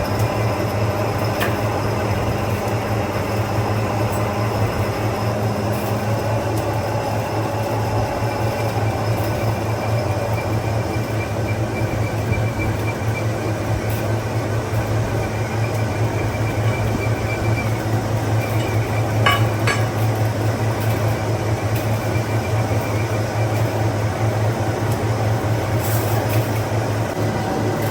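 Factory machinery running steadily with a constant low hum and a dense mechanical clatter, with a brief metallic clink about two thirds of the way through.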